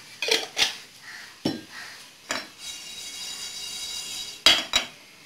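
Sharp clinks and knocks of metal utensils and a jar against a dry frying pan. Whole cumin seeds scrape and rattle in the pan for a couple of seconds as they are dry-roasted.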